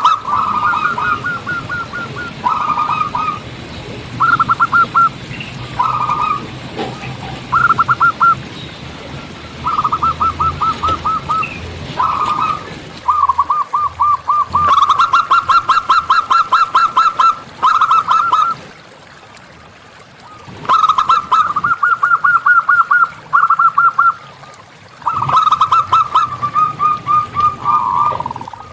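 Zebra doves (perkutut) cooing: phrase after phrase of rapid, evenly repeated notes at nearly one pitch, each phrase a second or two long with short breaks, and one longer pause about two-thirds of the way through.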